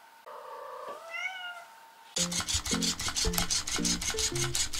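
A domestic cat meows once, a single long call that rises and then falls. About two seconds in, background music with a steady beat starts.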